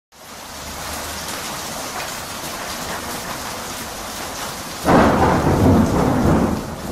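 Rain and thunder sound effect: a steady hiss of rain, then a loud clap of thunder about five seconds in that rumbles and fades.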